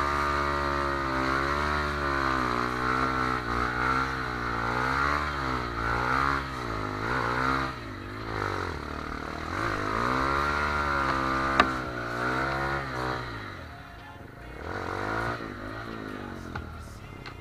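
Off-road trail motorcycle engine revving hard and unevenly, its pitch swinging up and down again and again as the throttle is worked. A sharp knock comes about two-thirds of the way through, after which the engine falls back to quieter, lower revs.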